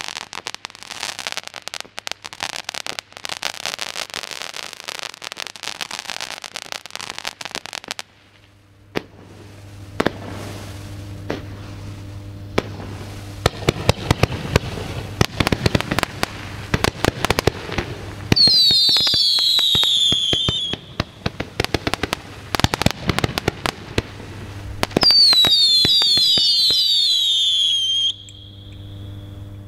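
WECO Blaster firework going off: a dense crackling, then a run of sharp pops and bangs as shot after shot is fired. Twice a cluster of loud overlapping whistles sounds, each dropping a little in pitch, for about two and three seconds, before the display dies away near the end.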